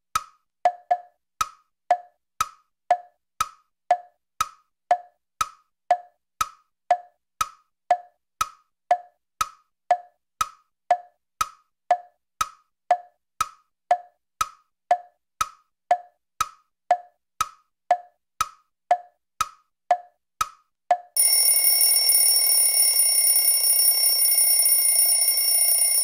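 Ticking-clock sound effect: steady tick-tock clicks alternating between a higher and a lower pitch, counting down. About 21 seconds in, the ticking stops and a louder, continuous alarm-clock bell starts ringing, signalling that the countdown is over.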